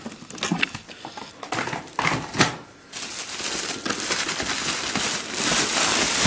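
Plastic carrier bag rustling and crinkling as it is handled, with scattered knocks from items shifting in a cardboard box. The crinkling turns continuous from about halfway through.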